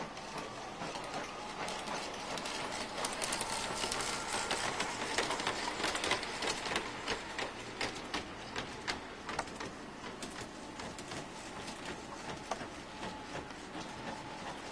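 Small motors and gears of animated miniature village pieces running with a steady faint whir, joined through the middle by a dense run of light mechanical clicks and clatter.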